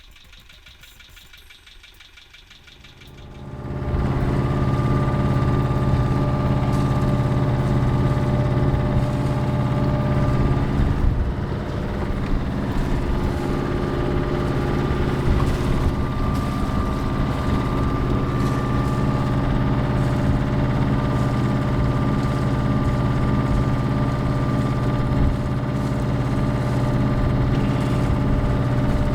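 Volvo Penta 2002 two-cylinder marine diesel engine starting up about three seconds in, then running steadily at idle.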